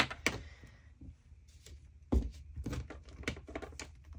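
Light clicks and taps of pencils and hands handled on a wooden desk, with one louder knock about two seconds in.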